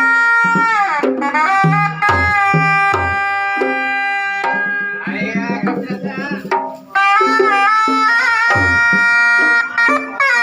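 Sundanese pencak silat drum-and-shawm music (kendang pencak) in the paleredan rhythm. A piercing reed shawm plays long held, ornamented melody notes over low and high hand-drum strokes.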